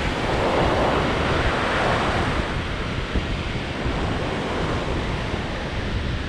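Surf breaking and washing up the beach, the rush of a wave swelling in the first couple of seconds, with onshore wind buffeting the microphone in a constant low rumble.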